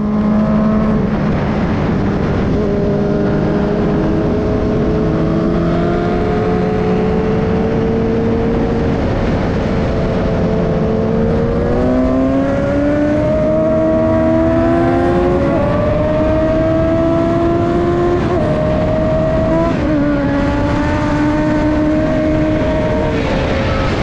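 Suzuki GSX-S 750's inline-four engine pulling hard, with wind rushing over the onboard microphone. The engine note climbs steadily as the bike accelerates, then drops in two steps near the end as it shifts up.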